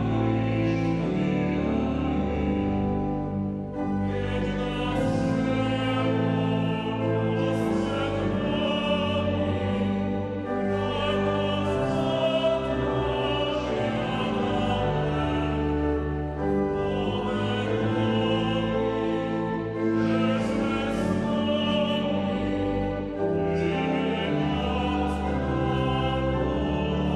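Church hymn sung with pipe organ accompaniment: male voices singing with vibrato, joined by the congregation, in phrases a few seconds long.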